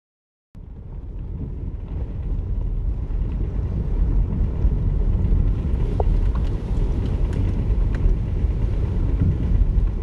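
Car driving on a dirt track, heard from inside the cabin: a steady low rumble of engine and tyres that fades in from silence at the start, with a few light clicks.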